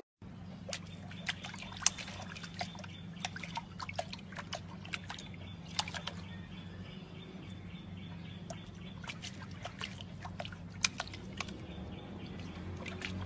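Puppy lapping water from a pot, a string of small, irregular wet clicks and splashes over a low steady hum.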